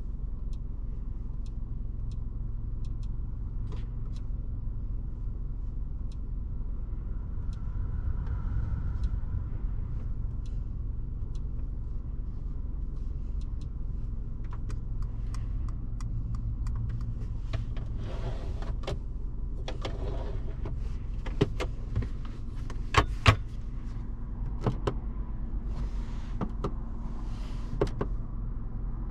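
Mercedes-Benz C 220 d's 2.0-litre four-cylinder diesel engine and tyres on the move, a steady low rumble. In the second half come irregular sharp clicks and knocks, a few of them loud.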